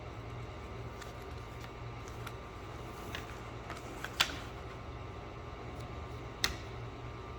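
Light clicks and crackles of vinyl wrap film being handled and pressed onto a car's edge, with two sharper ticks about four and six and a half seconds in, over a steady low hum.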